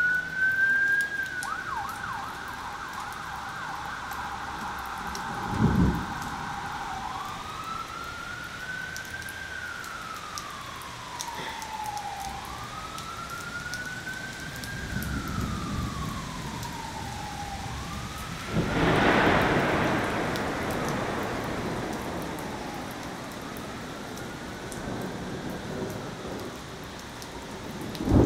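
Emergency vehicle siren wailing in slow rising and falling sweeps about every five seconds, over steady rain, with thunder rumbling twice, about six seconds in and again a little past the middle.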